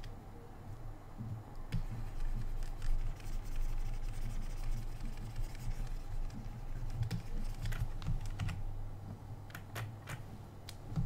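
Scattered clicks of computer keys: a couple of single clicks about two seconds in, then a run of them from about seven seconds on, over a low steady hum.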